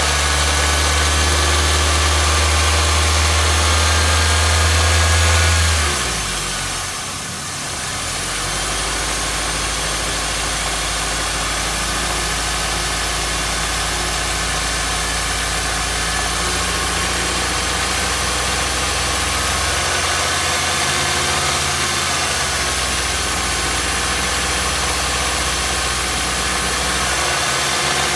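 Nissan HR16DE 1.6-litre four-cylinder engine of a 2015 Versa Note running steadily during a test for the knock that this engine is reported to make at certain revs. About six seconds in its note drops, and it settles into a steady, lower run.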